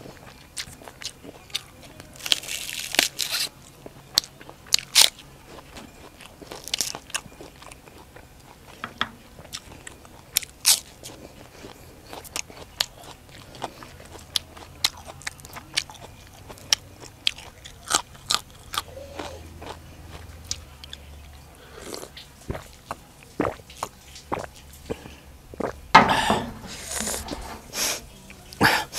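A person biting and chewing crunchy raw vegetables with papaya salad, close to the microphone: sharp crunches and wet mouth clicks, with louder spells of crunching about two seconds in and again near the end.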